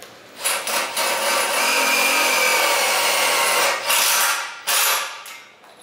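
Cordless drill driving a 2½-inch self-drilling screw into galvanized C-channel steel: a steady grinding as the drill point cuts through the steel for about three and a half seconds, followed by two short bursts near the end.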